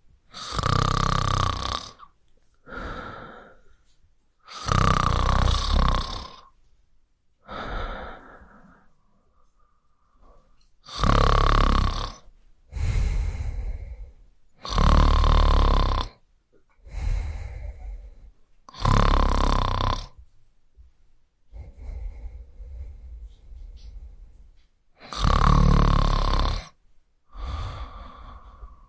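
A person snoring: long, loud snores every few seconds, each followed by a shorter, quieter breath.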